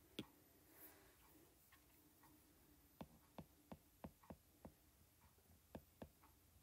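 Faint taps of a stylus tip on a tablet's glass screen during handwriting: one tap just after the start, a run of about six taps between three and five seconds in, and two more near the end.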